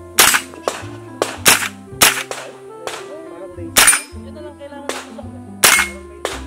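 AR-style semi-automatic rifle firing about ten sharp shots in quick, uneven succession, over background music.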